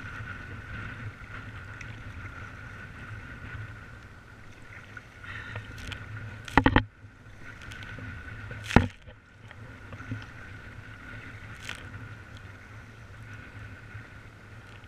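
Sea kayak on rough, wind-whipped water: steady rushing noise of wind and waves, broken by two sudden loud splashes, about six and a half and nine seconds in.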